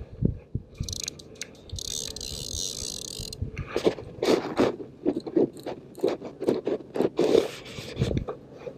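Spinning reel and rod being handled right at the microphone: hands and sleeve scraping and rubbing against the reel, first a hissing scrape, then a run of short rasps, about two or three a second, until just before the end.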